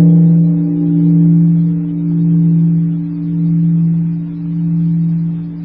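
A Buddhist temple bell ringing out after a single strike, a low steady ring that slowly swells and ebbs about once every second and a half while it fades. It is the closing bell of the chanting.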